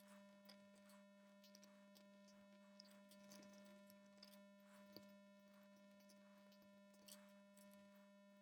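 Near silence: a steady electrical hum with faint scattered clicks and rustles of cables being pushed into a DIN connector's sleeve by hand.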